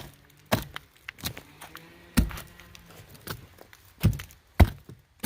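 Irregular sharp knocks and thunks of a tool striking wood while rotten log siding is cut out, about seven blows spread unevenly, the loudest about two seconds in and near the end.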